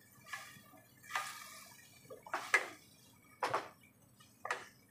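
Spoon stirring jaggery into tamarind juice in a kadai: about six short, irregular scrapes and knocks of the spoon against the pan, with a little liquid moving.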